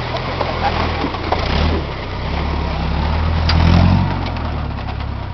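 Lifted Toyota 4x4 pickup's engine working under load as the truck crawls up a steep dirt bank, the engine note building to its loudest about four seconds in and then easing off.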